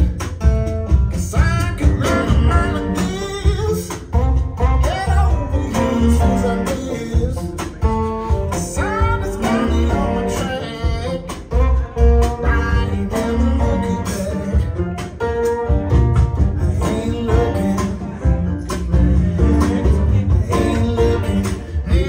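A recorded song, a singing voice with guitar over a repeated deep bass line, played back loud through a pair of Wilson Audio floor-standing loudspeakers in a hi-fi demonstration room.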